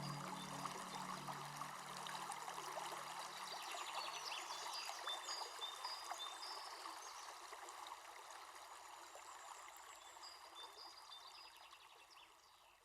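Forest ambience of a flowing stream with small birds chirping, fading out toward the end; the last low notes of soft meditation music die away over the first few seconds.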